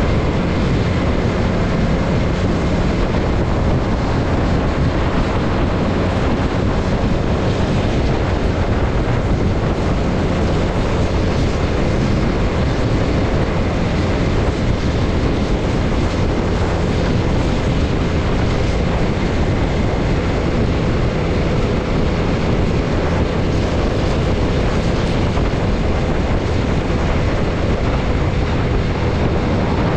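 Motorcycle engine running at a steady cruising speed of about 40 mph, its note held even, under steady wind rush on the camera's microphone.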